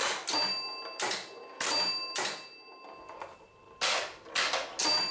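Bally 4 Queens electromechanical pinball machine in play, the ball bouncing about the playfield: about eight sharp clattering hits with a lull around three seconds in, and a steady bell-like ringing tone between them.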